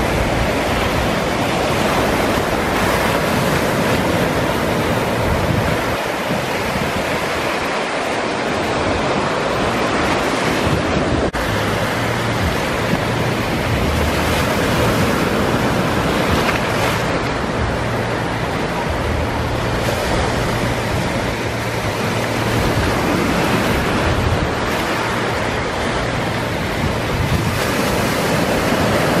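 Small sea waves breaking and washing up a sandy beach: a steady rush of surf that swells and eases, with wind buffeting the microphone.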